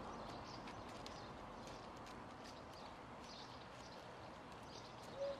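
Faint rustling and scattered light clicks of hands tying wire across a reed insulation mat, over a quiet outdoor background.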